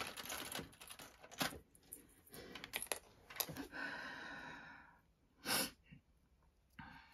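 Sharp clicks and light metallic clatter of metal clips being picked up and handled, in an irregular string. A drawn-out tone lasting about a second comes near the middle.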